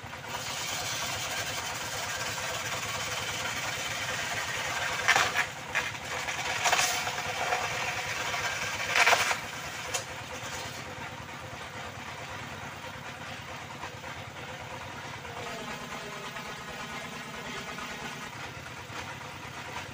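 Circular saw running steadily, with three loud bursts about five, seven and nine seconds in as the blade bites into wood. It runs more quietly after about eleven seconds.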